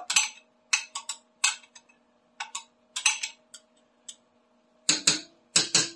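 Metal spoon scraping and clinking against the inside of a glass measuring cup, a dozen or so short strokes in irregular clusters, as thick barbecue sauce is scraped out of the cup.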